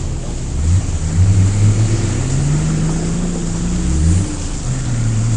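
Off-road vehicle engine revving under load, its pitch climbing, falling back and climbing again several times before settling into a steady drone near the end.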